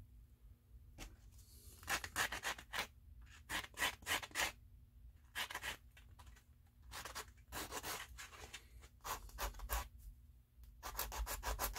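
Hand-sanding a small plastic model-kit part: quick back-and-forth rubbing strokes in short runs, with pauses between them.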